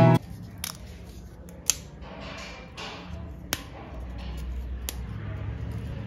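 Crisp fried murukku (rice and urad dal spiral snack) being snapped apart by hand: about five sharp cracks, roughly a second apart, with faint crumbly crackling between. The clean snaps are the sign of a murukku fried right through and very crispy.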